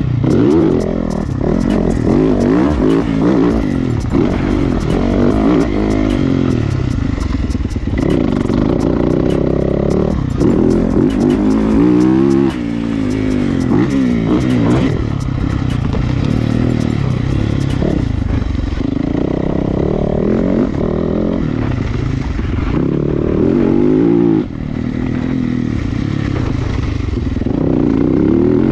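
Yamaha motocross bike's engine revving hard and dropping back over and over as it is ridden around a dirt track, its pitch climbing and falling with each burst of throttle and gear change. Heard up close from a camera mounted on the bike, with brief throttle chops about twelve and twenty-four seconds in.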